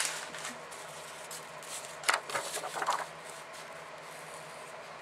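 Paper rustling as a sheet of patterned decorative paper is handled and slid over foam board: a brief rustle at the start and a louder burst of rustling about two seconds in.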